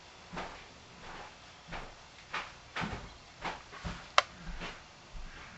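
A run of soft knocks and rustles, roughly two a second, with one sharp click a little after four seconds in.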